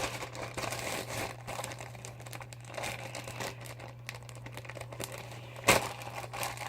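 Fluffy shaving-cream slime being handled: soft, irregular crackling and squishing, with one sharp click a little before the end.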